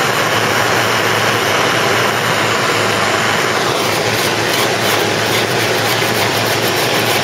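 Gas blowtorch flame hissing steadily while it heats the lead loading in a car body seam to melt it out. About halfway through, a brief falling tone.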